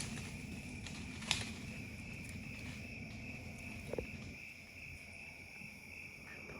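Steady chorus of crickets, a single high tone held without a break, with a faint click about a second in.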